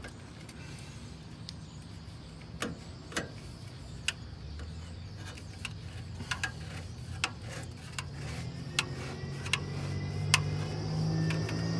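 Metal exhaust flex tube being worked onto an exhaust pipe: sharp clicks and knocks at irregular intervals. A low hum rises in the second half.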